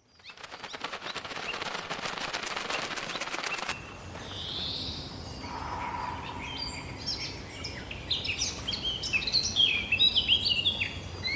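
Logo-intro sound effects: a fast, even rattle for the first few seconds, then a soft whoosh, then birds chirping with quick falling notes that grow busier and louder toward the end.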